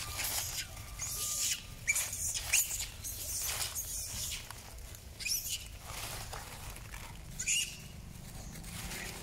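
Dry leaf litter rustling and crackling in short, uneven bursts as long-tailed macaques run and scuffle over it, with a few brief high squeaks.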